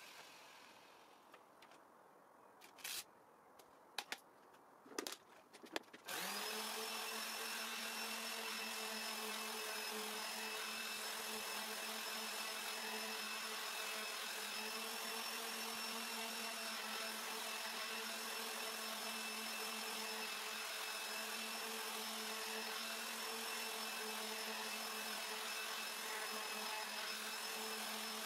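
A few short knocks, then about six seconds in an electric random orbital sander starts and runs steadily at an even pitch, wet-sanding the lacquer on a walnut and epoxy resin tabletop with a fine-grit abrasive disc.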